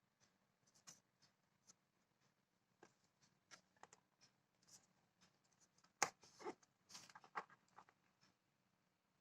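Light handling noises from a small plastic humidifier and its packaging: scattered clicks, taps and scrapes, with a louder cluster of knocks and rustles about six seconds in.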